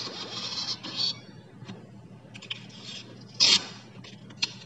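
Handling noise: hands rubbing and scraping against the tablet and the items on the table for about a second, then scattered light clicks and one louder short scrape about three and a half seconds in, over a low steady hum.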